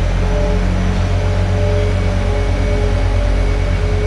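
Ice resurfacer running as it drives past close by on the rink, a steady loud rumble with a pulsing low beat.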